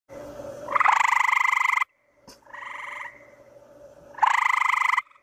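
Gray treefrog calling: two loud trills, each about a second long and made of a rapid run of pulses, with a fainter trill between them.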